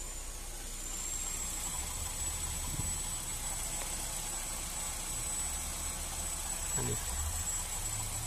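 Honda City i-DSI four-cylinder petrol engine idling steadily after sitting unused for years, a low even hum with a thin high whine over it.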